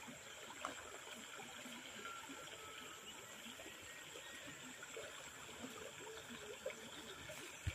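Faint, steady rush of flowing stream water under a thin, steady high whine, with a couple of soft knocks and handling clicks, one about half a second in and one near the end.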